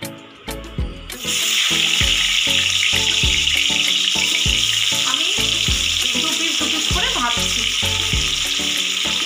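Pieces of bhola fish going into hot mustard oil in a kadai: the oil starts to sizzle loudly about a second in and keeps sizzling steadily as the fish fries. Background music with a steady beat plays underneath.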